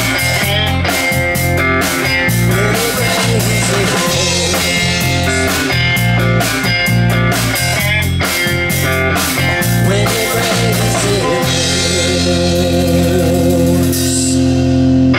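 Live band of electric guitar, electric bass and drum kit playing an instrumental passage with a steady beat. About eleven seconds in the drumbeat stops and the band holds one long ringing chord, with cymbals washing over it.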